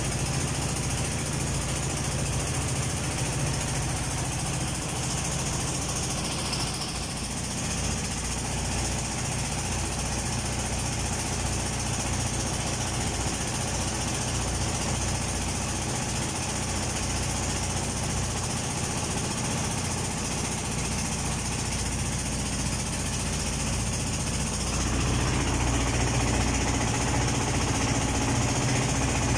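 River boat's diesel engine running steadily with a fast knocking beat and a deep hum, growing a little louder near the end.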